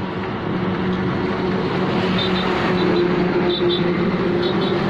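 A vehicle engine running steadily with a low, even hum that slowly grows louder.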